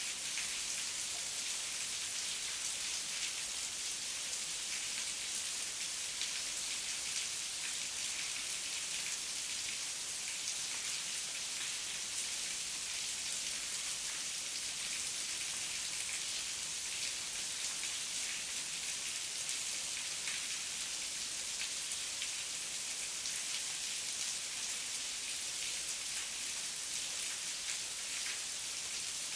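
Heavy rain falling steadily, a dense even hiss made of many fine drop patters, without pause or change.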